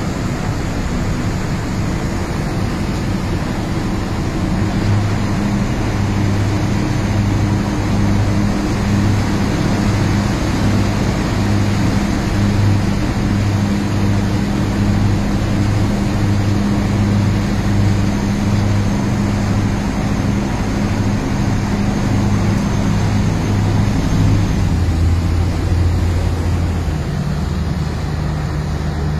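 High-speed river catamaran's diesel engines droning steadily under way, with water rushing past the hull. The engine note shifts lower a few seconds before the end.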